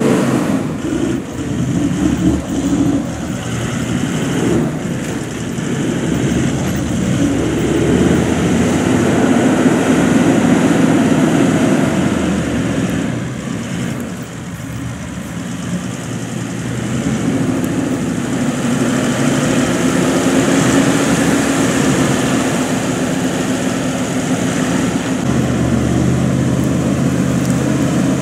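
A 4x4 vehicle's engine working under load on a heavy-sand track, its revs rising and falling, easing off about halfway through, and settling into a lower steady hum near the end.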